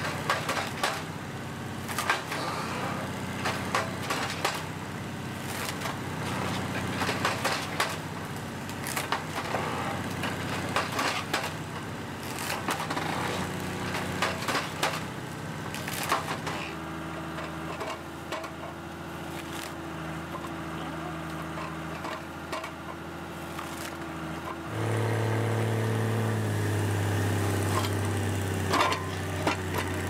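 A machine engine running with shifting pitch, while wood cracks and splinters in repeated sharp snaps through the first half. About 25 seconds in, the engine gets louder and deeper.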